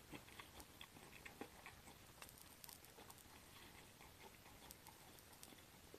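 Near silence with faint, scattered small clicks and ticks over a low hiss.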